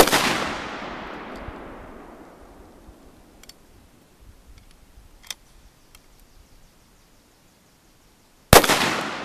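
Two gunshots about eight and a half seconds apart, each a sharp crack followed by a long echo fading over a couple of seconds: cast-lead .38 Special/.357 Magnum rounds fired from an Ithaca 66 single-shot 12-gauge shotgun through a chamber adapter.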